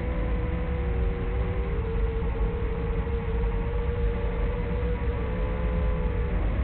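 Small FPV quadcopter's brushless motors whining in flight, a few close pitches that waver and split apart with the throttle, over heavy low wind rumble.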